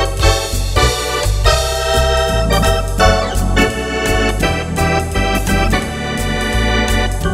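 Wersi Atlantis SN3 electronic organ playing swing with drawbar registrations: chords on the manuals over bass notes on the pedals that change about twice a second.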